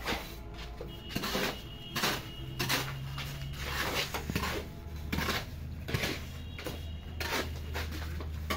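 A hoe chopping and scraping through wet cement mortar on a hard floor, in irregular strikes about once or twice a second.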